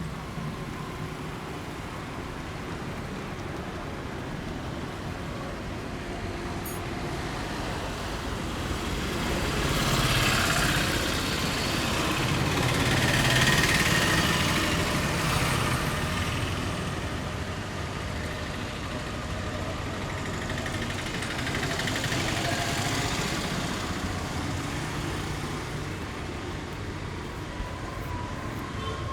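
Steady road traffic noise that swells as vehicles pass, louder about ten to sixteen seconds in and again a little after twenty seconds.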